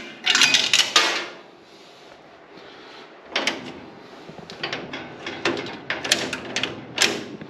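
The metal coin mechanism of a 1950s Stoner Univendor candy machine clicking and clattering as it is handled and worked. The loudest clatter comes in the first second, followed by a string of lighter clicks and knocks.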